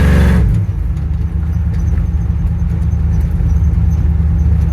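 Small-block Chevy V8 of a 1962 Chevy C10 running, dropping back from a louder burst to a steady low idle rumble about half a second in.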